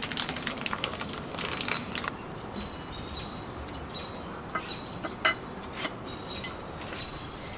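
Scattered light clicks and clinks of a pet cot's powder-coated steel frame tubes and small fittings being handled during assembly, over steady outdoor background noise.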